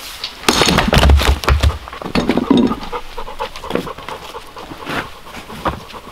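An axe strikes a firewood round on a chopping block about half a second in, a heavy, sudden split with the pieces clattering down. A few sharp knocks of split wood being handled follow.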